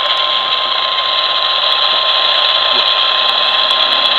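NOAA Weather Radio warning alarm tone, a single steady 1050 Hz tone held unbroken over a loud hiss of radio static, announcing a severe thunderstorm warning broadcast.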